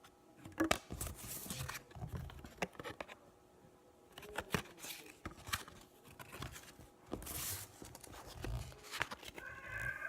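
Baseball trading cards being handled: irregular rustling and sliding of card stock, with small taps and clicks.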